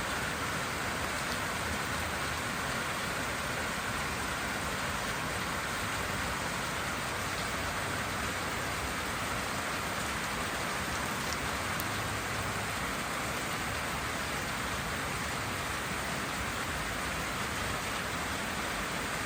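Steady rain falling: an even, unbroken hiss with no change in level.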